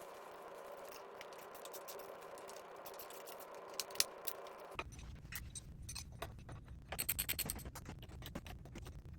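Scattered light clicks and clinks of hand work on the unicycle wheel, with a quick run of clicks about seven seconds in. A faint steady hum fills the first few seconds and stops abruptly.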